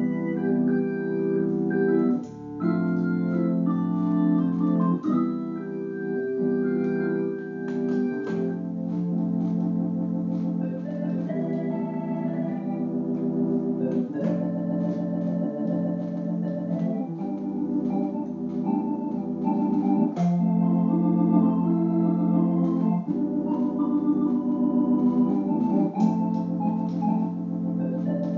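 Electronic home organ with two keyboards played with both hands: sustained chords under a melody line, the chords changing every second or so, with a couple of brief breaks near the start.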